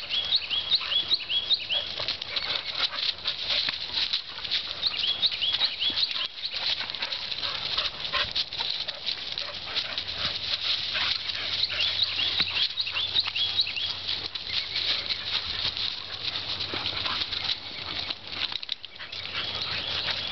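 Several dogs playing rough on dry fallen leaves: steady scuffling and crackling of leaves under their running paws, with occasional dog noises.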